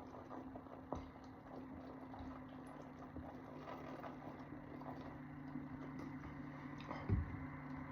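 Soft gulping and fizzing as Pepsi Zero is chugged, many small clicks over a steady low hum, with one short low sound, the loudest moment, about seven seconds in.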